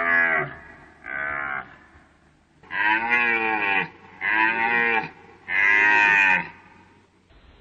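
Deer calling: a run of five drawn-out calls, each rising and then falling in pitch. The first two are shorter and the last three last about a second each.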